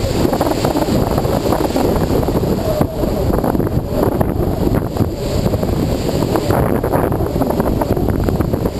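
Strong wind buffeting the microphone: a loud, steady, rumbling roar.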